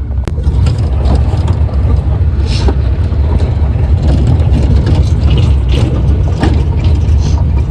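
Steady, loud low rumble.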